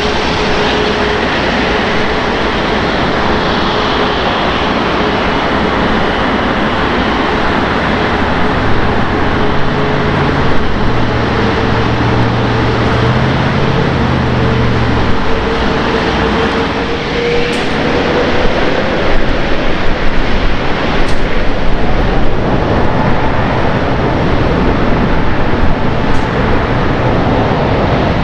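Airbus A380-841's four Rolls-Royce Trent 970 turbofans running as the jet taxis, a loud steady rush of jet noise with a thin whine that rises slightly in pitch about two-thirds of the way through.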